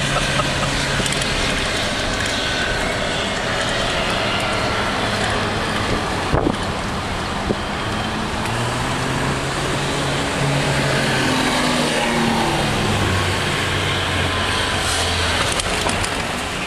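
Road and engine noise heard from inside a moving car: a steady rush of tyres and wind with an engine hum that rises and falls in pitch, and two short knocks midway.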